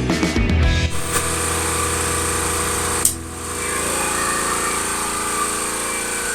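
Handheld power tool running steadily against the welded steel core support, smoothing down the welds, with a brief drop about three seconds in.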